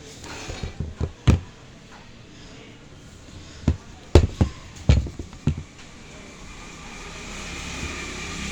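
A handful of sharp knocks and clacks at irregular intervals, the loudest a cluster about four to five seconds in, then a faint steady hum that slowly grows louder near the end.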